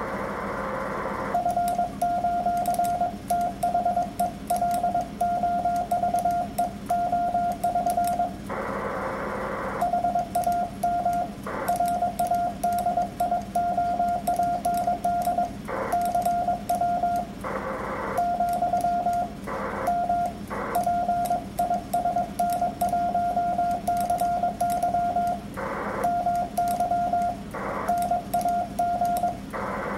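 Morse code (CW) being sent at about 22 words per minute: a transceiver's single-pitch sidetone beeping in rapid dots and dashes. Short bursts of hiss fill the longer pauses between words.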